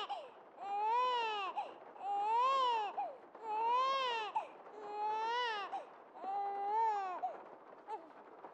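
An infant crying: five full wails, each rising and falling in pitch and lasting under a second, one about every second and a half, then a short broken cry near the end.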